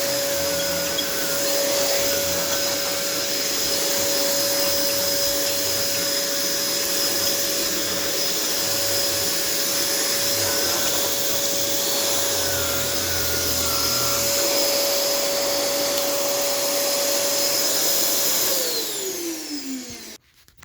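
Hoover WindTunnel Air bagless canister vacuum cleaner running steadily, a loud rushing of air with a steady motor whine. Near the end it is switched off, and the motor winds down with a falling whine.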